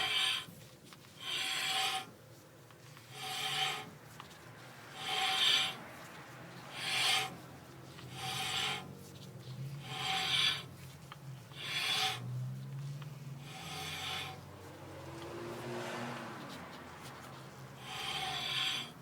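Front disc brake on a VW Type 3 Squareback making a scraping noise in short repeated bursts, about one every two seconds, with a faint tone in each.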